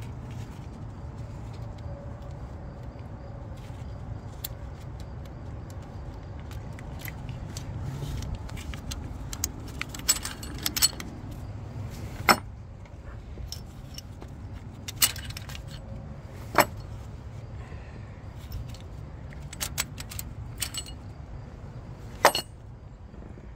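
Sharp metallic clinks and clatters of tools and engine parts being handled on a diesel engine's top end, scattered through, with a cluster in the middle and single loud ones later, over a steady low background rumble.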